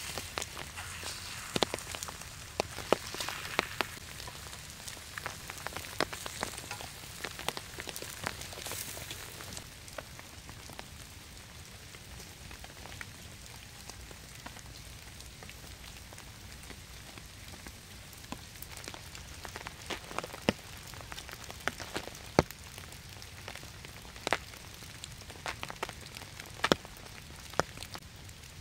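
Steady rain falling, with scattered sharp taps and ticks of single drops throughout.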